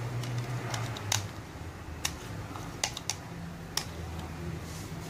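Scattered sharp, light clicks and taps, about eight at irregular intervals, from handling a plastic measuring cup while melted butter is poured into a pan of milk and water, over a faint low hum.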